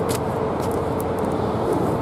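Steady rumble of road traffic on the bridge overhead, with a faint steady hum and a few light ticks.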